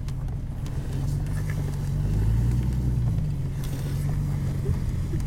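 Jeep engine running steadily while driving slowly through snow, a low hum that rises slightly in pitch about two seconds in.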